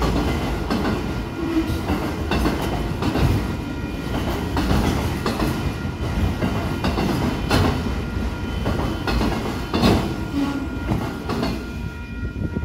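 Autorack freight cars rolling past at close range: a steady rumble of steel wheels with repeated clicks over the rail joints. The level-crossing bell rings throughout.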